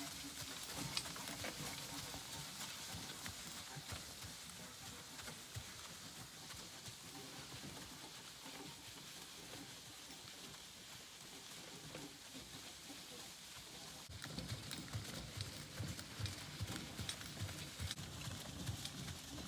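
North Swedish draft horse walking on arena sand while pulling a carriage: soft, uneven hoofbeats with the carriage rolling behind. The hoofbeats get louder about two-thirds of the way through.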